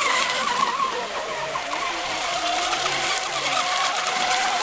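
Several radio-controlled racing hydroplanes running flat out across the water, their motors giving a high, steady whine that wavers slightly in pitch.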